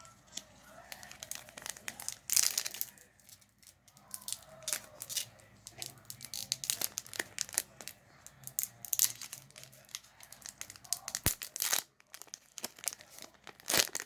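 Trading card booster pack wrapper being torn open and crinkled in the hands: a run of sharp crackling and tearing sounds, loudest about two seconds in and again around nine seconds.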